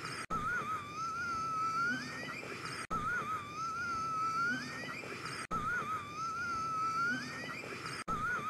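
A man's wheezing gasp for air, looped: a thin whistling tone that wavers and then rises in pitch, repeating about every two and a half seconds with a brief gap at each repeat.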